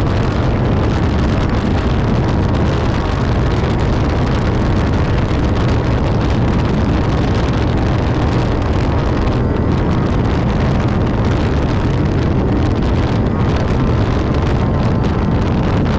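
Class 10 off-road race buggy running at speed: steady, loud engine noise mixed with wind buffeting on the microphone.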